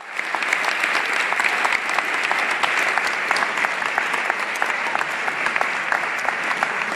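Audience applauding: a dense, steady patter of many people clapping.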